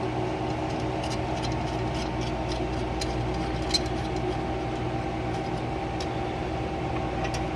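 Steady hum of a running laboratory chemistry analyzer, with a few light clicks and taps as its parts are handled.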